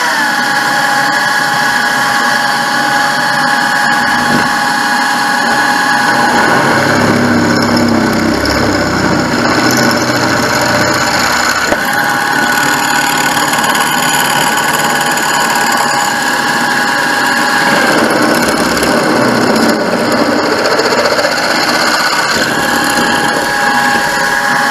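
Bench pillar drill running, its twist bit boring through steel box section held in a machine vice. A steady motor whine twice gives way for several seconds to a rougher, lower cutting sound as the bit is fed into the metal. The bits are blunt, so the cutting goes slowly.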